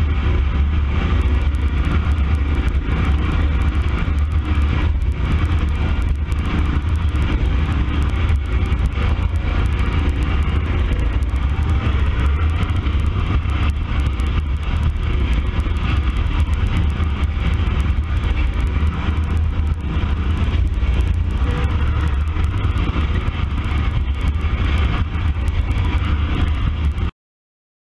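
Toro 44-inch-cut lap-bar riding mower, 12 years old, running steadily under way, heard close up from on board. The sound cuts off suddenly near the end.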